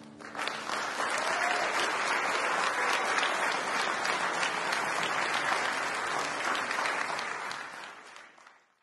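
Audience applauding, a dense patter of clapping that swells quickly at the start, holds steady, and fades out near the end.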